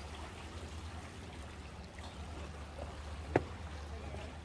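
Seawater gently lapping and trickling against rocks and concrete tetrapods, over a steady low rumble. A single sharp tap sounds about three and a half seconds in.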